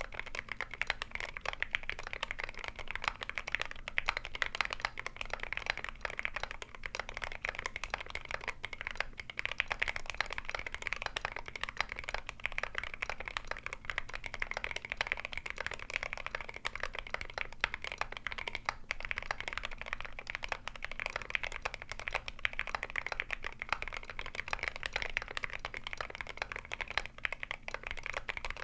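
Continuous fast typing on a custom mechanical keyboard: GMMK Pro with brass plate, lubed linear Akko Jelly Black switches and MSA-profile keycaps, tape-modded, giving a dense run of keystrokes clicking and bottoming out.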